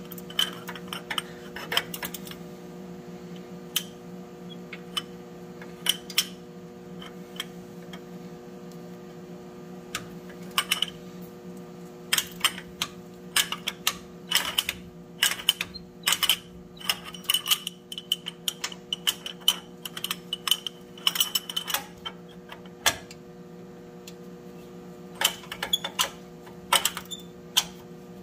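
Ratchet wrench clicking in runs of quick clicks as a 10 mm sway bar end link nut is worked loose, with a cheater pipe on the ratchet handle; the clicks come sparsely at first and in dense runs in the middle and near the end. A steady low hum runs underneath.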